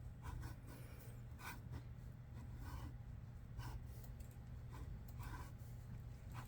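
Pencil sketching on paper: irregular short scratchy strokes, a few drawn out longer, over a steady low room hum.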